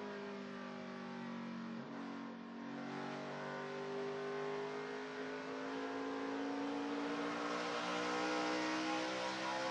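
NASCAR Camping World Truck Series race truck's V8 engine heard onboard at racing speed. The engine note breaks off and dips briefly about two seconds in, then rises steadily in pitch as the truck accelerates onto the straight.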